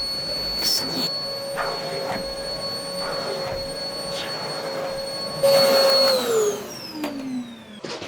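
An electric appliance motor running with a steady whine, a few light knocks over it. About five and a half seconds in it gets louder, then it is switched off and winds down in pitch.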